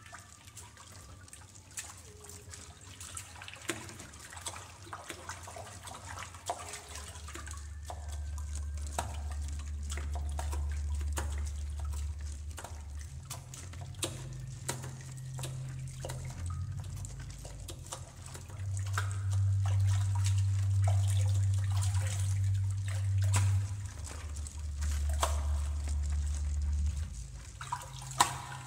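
Contemporary music passage with no voice: scattered drips and trickling water sounds over low held drone notes. The drone notes step between pitches every few seconds and swell loudest a little past the middle.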